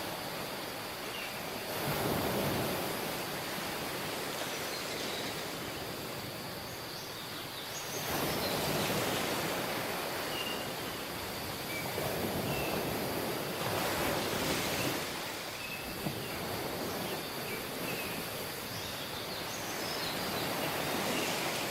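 Waves breaking on a tropical beach, the surf swelling and easing about every six seconds, with faint short high chirps in the background.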